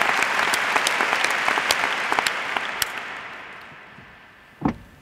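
Audience applause: many people clapping, the dense clapping thinning out and dying away over the second half. A brief low thump sounds just before the end.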